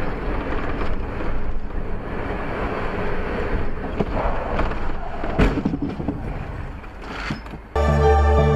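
Steady road and wind noise from a moving vehicle, with a sharp knock about five seconds in and a lighter one about two seconds later. Music cuts in near the end.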